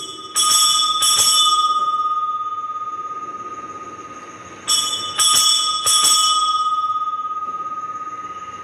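Altar bells rung at the elevation of the chalice during the consecration: two rounds of three or four quick strikes, one at the start and one near the middle, each leaving a long ringing tone that slowly dies away.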